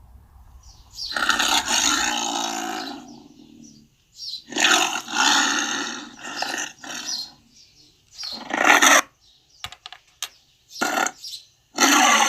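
Tiger roaring and grunting: one long roar about a second in, then a string of shorter grunting roars separated by brief silences.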